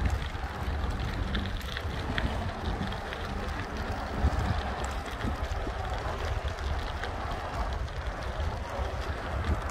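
Wind buffeting the microphone while riding a bicycle, a steady low rumble with scattered small clicks and rattles.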